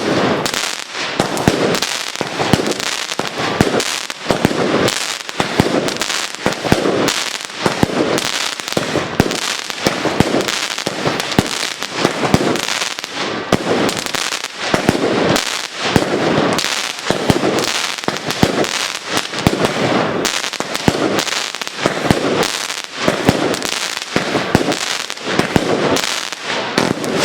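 Batteria napoletana: a long chain of ground firecrackers and salutes going off in a dense, unbroken rattle of bangs, swelling in rolling waves about once a second.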